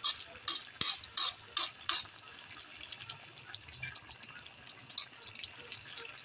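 A metal ladle stirring a coconut-milk fish stew in a metal wok: about six quick wet scrapes and sloshes in the first two seconds, then one more about five seconds in.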